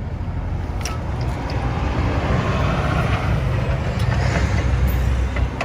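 Steady low rumble of a running motor vehicle, which drops away suddenly at the end.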